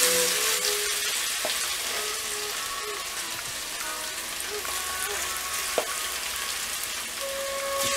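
Marinated chicken pieces sizzling as they are added to hot oil in a frying pan, a dense steady frying hiss that eases slightly after the first moment. There are two light knocks, about a second and a half in and near six seconds.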